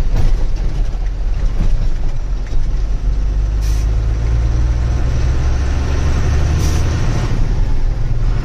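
Truck engine running steadily while under way, with a low drone that rises a little in the middle. Two short air hisses come about four and seven seconds in.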